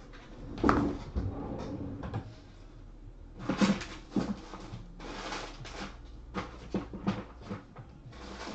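Handling noises on a tabletop: scattered knocks and bumps with rustling in between, the loudest knock about a second in.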